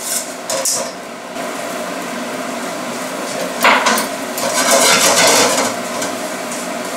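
A spoon scraping and knocking against a pan while stirring a dry, crumbly flour-and-margarine roux as it cooks. A few sharp taps come near the start, and louder scrapes come about three and a half seconds in and again around five seconds, over a steady hiss.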